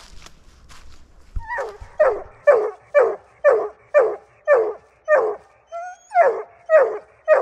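An 11-month-old Bluetick coonhound barking treed, after a second or so of footsteps through dry leaves. The barks come short and regular, about two a second, each falling in pitch, with one brief pause: the hound is sitting at the base of the tree, head up, marking the quarry up it.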